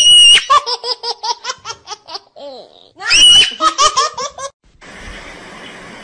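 A person's high-pitched squeal breaking into a quick run of laughter, twice; then a steady hiss.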